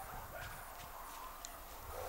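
Faint animal sounds with a few light clicks.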